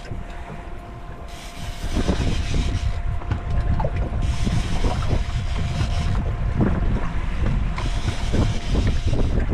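Wind buffeting the microphone aboard a small fishing boat, with a steady faint hum and scattered mechanical clicks. It grows louder about two seconds in.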